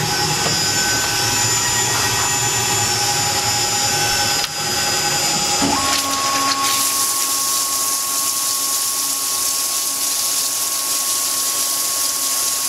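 Tormach PCNC CNC mill running with a steady whine whose pitch changes about six seconds in. About seven seconds in, the high-flow flood coolant comes on: a loud, steady hissing spray of coolant over the workpiece and tool.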